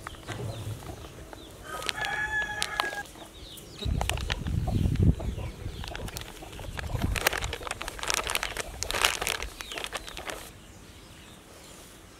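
Crinkling plastic flour bag and flour pouring out onto a steel plate, with a low rush about four seconds in. A rooster crows once, briefly, about two seconds in.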